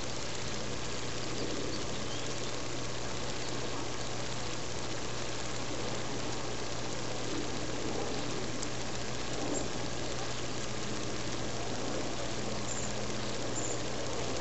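Steady low machine-like hum with a constant hiss, unchanging throughout.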